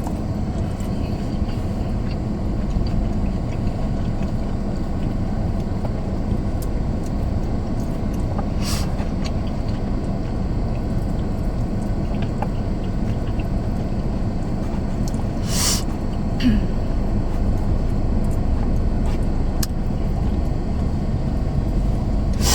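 Steady low rumble of a car's cabin, engine and road noise, with a few short crackles about nine and sixteen seconds in.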